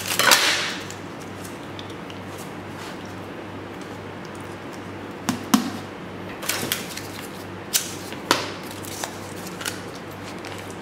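A handful of short clicks and paper rustles from hands working with a kraft paper strip and scissors on a worktable, over a steady low hum. There is a louder rustle at the very start, and the clicks fall in the second half.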